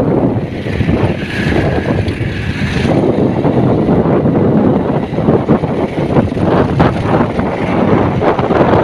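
Wind buffeting the microphone on a moving motorbike, with riding noise underneath. About a second in, a steady high tone sounds for roughly two seconds.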